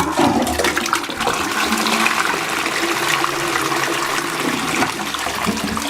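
Balterley Beo Regent close-coupled toilet flushing: a sudden rush of water into the bowl that keeps up steadily for several seconds.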